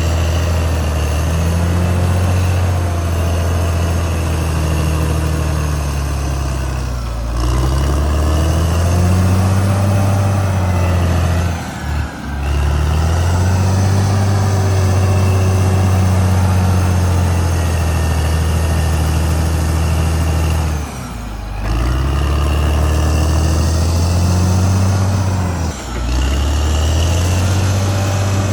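Caterpillar D6R XL bulldozer's diesel engine running loud and steady, its note dipping briefly and climbing back about four times.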